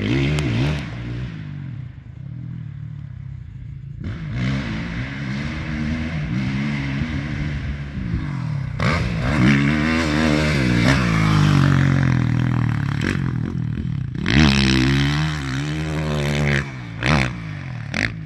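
Dirt bike engine revving up and falling back again and again as it is ridden around a dirt track through the gears. It grows loudest as the bike comes close about nine seconds in and again about fourteen seconds in.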